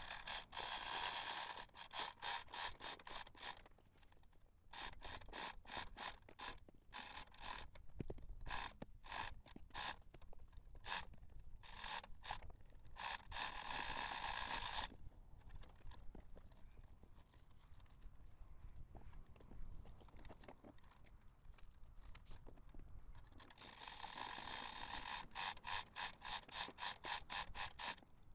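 A ratchet clicking in quick runs of rapid clicks, several short bursts one after another, then a pause of several seconds, then a longer run near the end.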